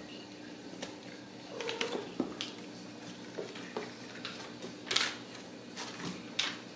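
Ragdoll kittens playing on a hard tile floor: scattered light clicks and clatters from paws, claws and toys on tile and cardboard scratchers, the sharpest about five seconds in and again near the end, over a steady low hum.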